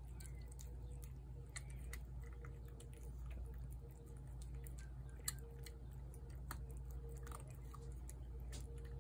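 Feral cat chewing wet cat food from a plate: scattered short wet clicks and smacks, over a steady low hum.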